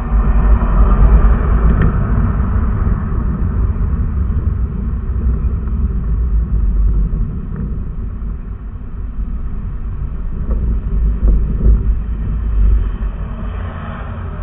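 Steady low rumble of a vehicle's engine and road noise, heard from inside the cab while driving.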